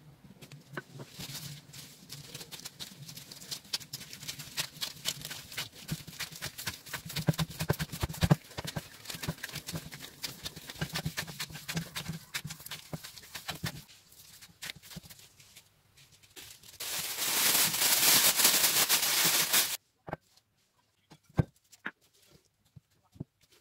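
Bread dough being kneaded by latex-gloved hands with melted butter worked in: a dense run of small wet, sticky clicks and squelches that thins out after about fourteen seconds. About seventeen seconds in comes a louder steady hiss lasting about three seconds, which then cuts off suddenly, leaving a few scattered clicks.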